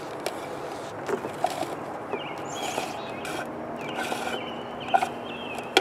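Cord being pulled out of a spring-loaded retractable clothesline reel, with soft rubbing and a few light clicks.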